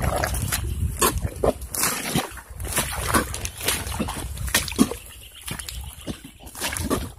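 Footsteps squelching and sloshing through soft swamp mud at an uneven walking pace, with the walker's heavy, tired breathing.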